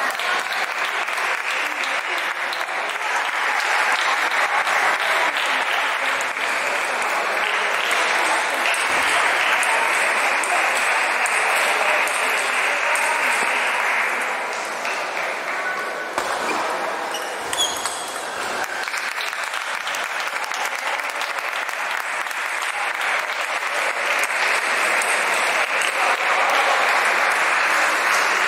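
Steady clatter of a busy table tennis hall: balls clicking off tables and rubber paddles at many tables at once, blending into an applause-like din with voices mixed in.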